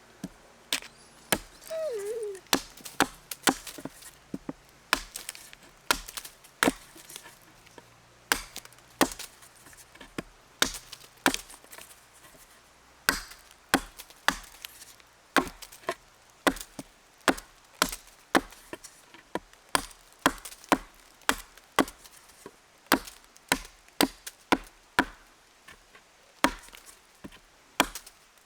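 Wood being chopped: a long series of sharp, irregular blows, about one to two a second.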